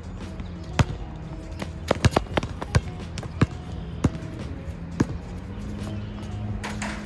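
A basketball bouncing on a hard outdoor court: a quick run of dribbles around two seconds in, then single bounces about a second apart, over background music with a steady bass.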